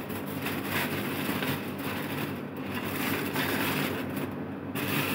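Aluminium foil crinkling and rustling as it is peeled back off a pot of biryani, over a steady low hum.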